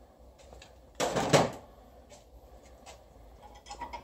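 A short clatter about a second in, then a few light clicks near the end: hand tools and small bolts handled on an engine block.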